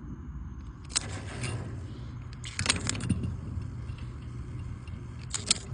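Electrical arcing at a well pump pressure switch's contact points: sharp crackles and snaps about a second in, again around two and a half to three seconds, and near the end, over a low steady hum. Ants packed on the points keep the contacts from closing cleanly, so they spark and burn the ants instead of starting the pump.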